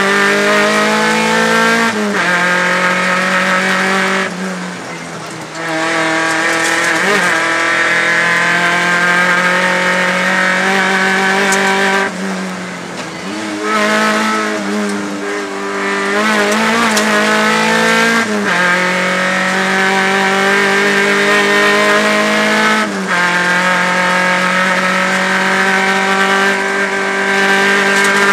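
Rally car engine heard from inside the cockpit at full stage pace. The pitch climbs steadily in each gear and drops sharply at each upshift. The engine eases off twice for a second or two, about four and twelve seconds in, then pulls hard again.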